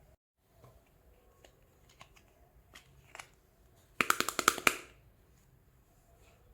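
Small plastic toy pieces being handled: a few light taps, then a quick clatter of about eight sharp clicks in under a second, about four seconds in.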